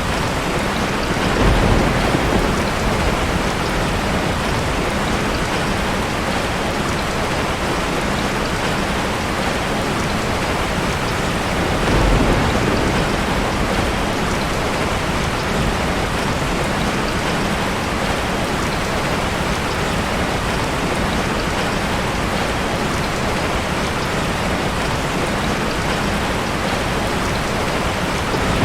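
Steady rain falling, an even hiss, with low rumbles of thunder swelling briefly about a second and a half in and again about twelve seconds in.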